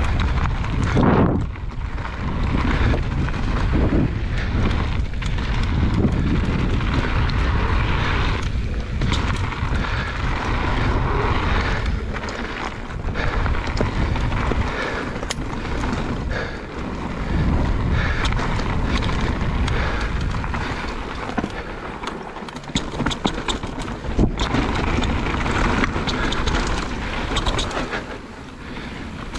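Mountain bike descending a dirt trail: heavy wind noise on the microphone over tyre roar and the bike rattling, rising and falling with speed, with a run of sharp clicks and knocks near the end.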